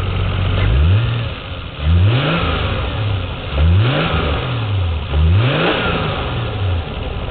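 Toyota Supra's 7M inline-six being revved in four quick blips off idle, each rising and falling back.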